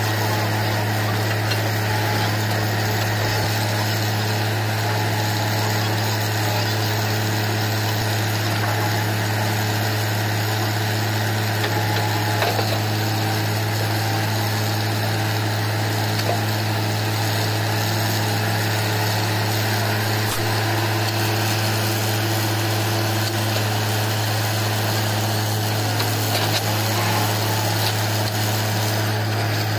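Truck-mounted borewell drilling rig's diesel engine running steadily, a deep, even drone.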